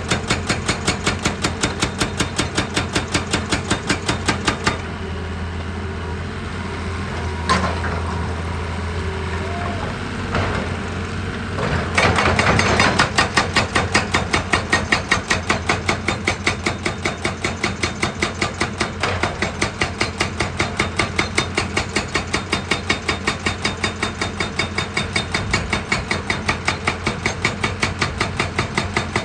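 Heavy quarry machine hammering rock in a rapid, even rhythm of about five blows a second over a running engine. The hammering stops about five seconds in, leaving the engine running, and resumes about twelve seconds in.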